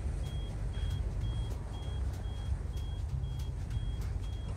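Audible pedestrian-crossing signal at a traffic light beeping steadily, about two short high beeps a second, over a steady low rumble.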